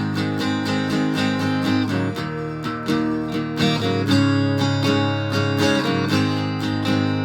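Acoustic guitar fitted with a Bartolini 3AV pickup, run through a BOSS DS-1 distortion pedal into an amplifier and strummed in a steady chord rhythm, with chord changes about two and four seconds in. It is tuned a half step down.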